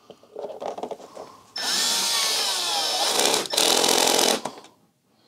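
Milwaukee cordless screwdriver running screws into the motorcycle's bodywork panels. There are two runs: a longer one with a whine that falls in pitch as the screw drives home, then a short second burst.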